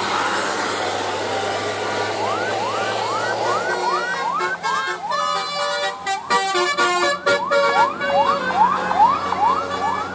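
Indonesian bus telolet horn playing over engine and road noise. From about two seconds in it gives a fast run of rising siren-like whoops, and from about four seconds a stepped multi-note horn tune joins in, getting louder toward the end.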